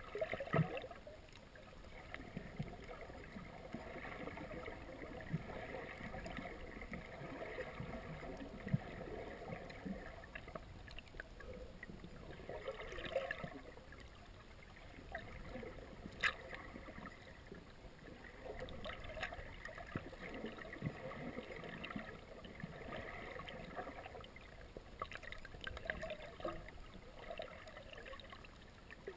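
Muffled underwater noise heard through a submerged camera: water moving around it, with scattered clicks and knocks, one sharp click about halfway through.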